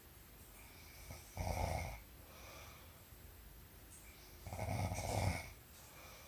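A woman snoring in her sleep: two snores about three seconds apart, with softer breaths between them.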